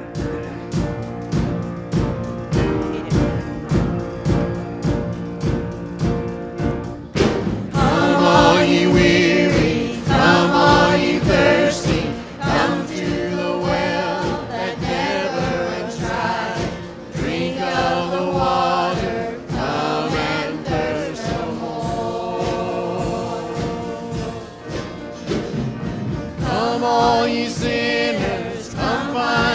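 Church worship song. It opens with an instrumental introduction over a steady beat, and the singers come in about seven seconds in and keep singing over the accompaniment.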